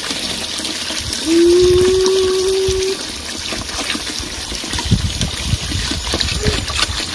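Water poured in a steady stream from a plastic jug into a large pot of boiling red peas, splashing and trickling. About a second in, a loud steady tone is held for nearly two seconds.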